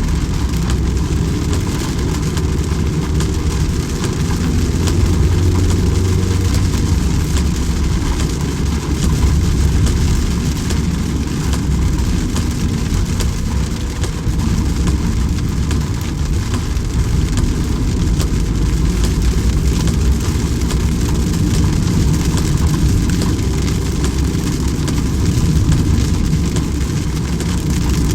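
Steady rain hissing without a break, over a strong low rumble.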